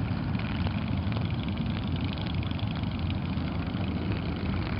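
A large crowd of motorcycles idling together, a steady low engine sound.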